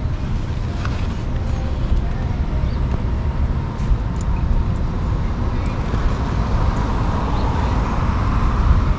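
Steady low rumble of wind and parking-lot traffic, with a few small clicks and rustles as groceries are packed into a motorcycle saddlebag; a car's noise builds near the end.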